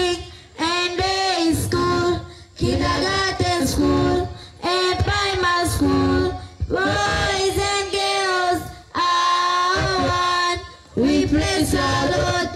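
Voices singing a song together, in held phrases of a second or two separated by short breaks.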